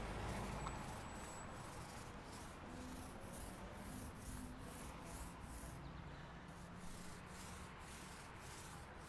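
Paint roller rolling wet paint onto the flat steel side of a utility box: faint rubbing strokes in a quick, even rhythm.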